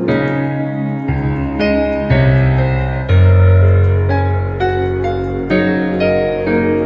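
Slow, gentle piano music with sustained notes and chords. A deep bass note enters about three seconds in.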